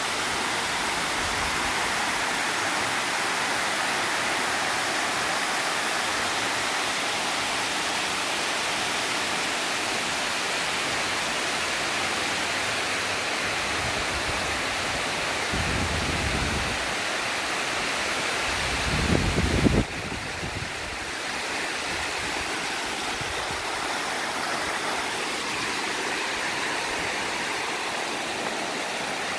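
Water overflowing a masonry dam spillway and cascading down its face: a steady, dense rush. About two-thirds through, two brief low rumbles hit the microphone, the second the loudest moment, and the rush is a little quieter after them.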